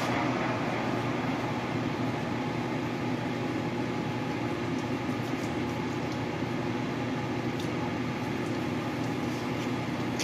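Machine tool running steadily, most likely the lathe turning the shift knob: a constant mechanical drone with a steady low hum.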